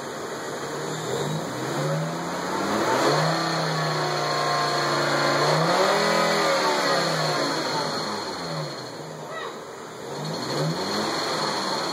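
1998 Volvo S70's five-cylinder engine being revved up, held, let back down and revved again, with a high whine at the higher revs. Through it runs a click-clack noise that gets faster with the revs but not louder.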